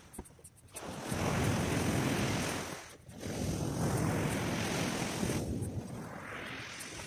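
Rushing wind and breaking surf, with wind buffeting the microphone. The noise swells and falls away in gusts, dropping out briefly near the start and again about three seconds in.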